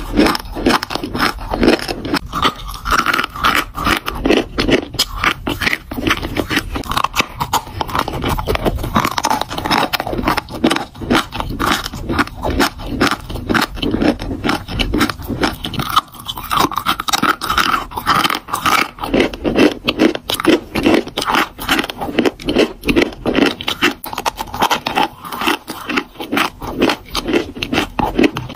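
Chewing and crunching of dry chalk: a dense, unbroken run of gritty crunches and crackles.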